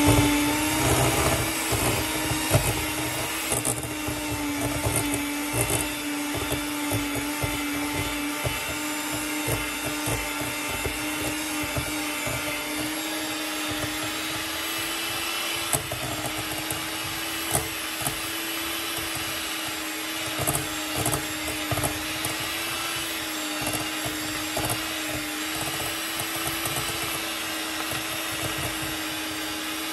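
Electric hand mixer running steadily on a low speed, its beaters creaming butter and sugar in a bowl, with a few sharp knocks of the beaters against the bowl.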